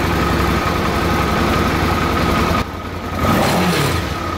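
Suzuki DL650 V-twin engine running, its level dropping about two and a half seconds in and picking up again about half a second later. It is running on low fuel pressure, about 1.5 bar where 3 is specified, the suspected cause of its sneezing and hunting revs.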